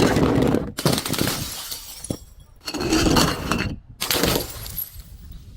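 Glass being broken and crushed: four loud bursts of shattering and crunching, each starting sharply, with new ones about one, two and a half and four seconds in.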